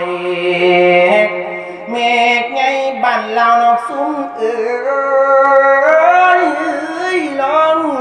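A Thai Buddhist monk singing a sermon in verse (klon) in a long melodic chant. He holds drawn-out notes and bends them up and down without a break.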